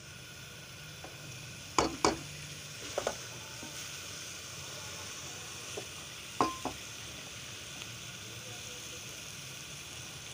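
Food sizzling in a metal pot as it is stirred with a wooden spatula, the spatula knocking sharply against the pot a few times, in pairs.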